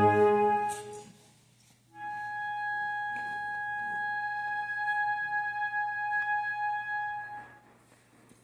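A concert band's full chord dies away. After a short pause, a single wind instrument holds one long, steady high note for about five seconds, then fades out.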